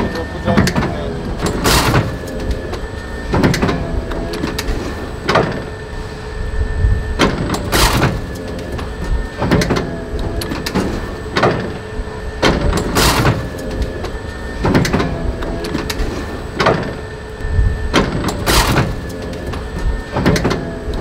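Industrial book-trimming machine running in its cutting cycle: a sharp cutting stroke about every one and a half to two seconds over a steady mechanical hum.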